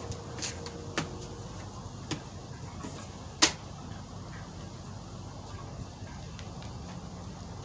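A few sharp clicks and knocks over a steady low hum, the loudest about three and a half seconds in.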